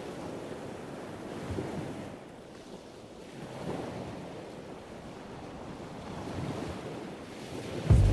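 Ocean surf breaking on a beach, the wash swelling and ebbing every few seconds, with wind buffeting the microphone. Music cuts in right at the end.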